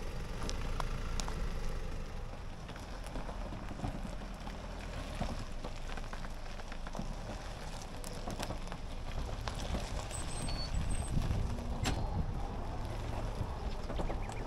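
Low steady rumble of a slow-moving four-wheel-drive vehicle, with scattered crunches and crackles from loose stones and gravel.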